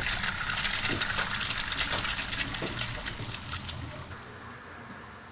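Food sizzling and crackling in a frying pan, a steady hiss with many small pops, fading out about four seconds in.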